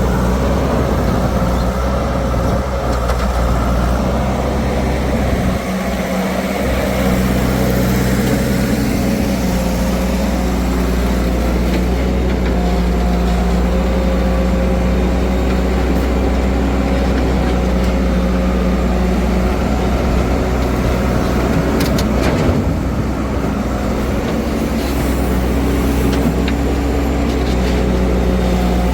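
A heavy machine's engine running steadily, a deep even drone with a faint steady whine over it.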